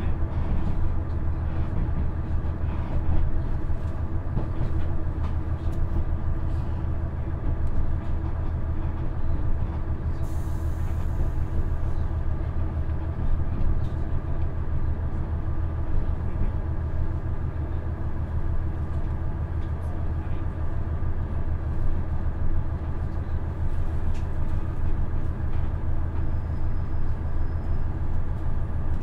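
Cabin sound inside a KiHa 110-series diesel railcar (KiHa 112-203) with its Cummins diesel engine: steady engine drone over running rumble as the train nears a station stop.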